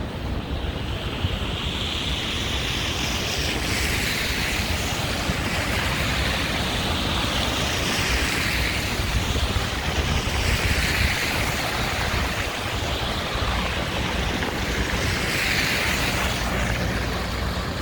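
Strong storm wind buffeting the microphone: a constant low rumble with hissing gusts that swell and fade every few seconds.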